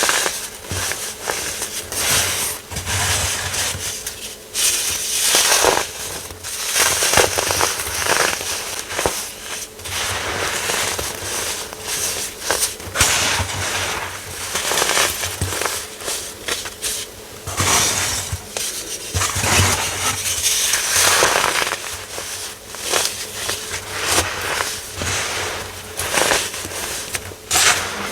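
Baking soda being crushed and crumbled: an irregular run of crunching with many sharp crackles.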